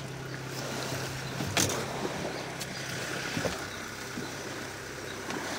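Small boat's outboard motor running at low speed with a steady low hum that fades after a couple of seconds. Water washes along the hull, with a few light knocks in the boat.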